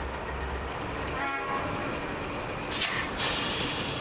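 NR class diesel-electric locomotives idling while standing, with a steady low rumble. About a second in there is a brief high tone, and near three seconds a short, loud hiss.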